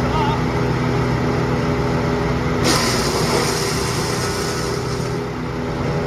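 Jonco MC100 wood chipper's engine running steadily. About two and a half seconds in, a branch goes into the cutters and is chipped, a loud, sudden crackling hiss of shredding wood over the engine that lasts about two seconds.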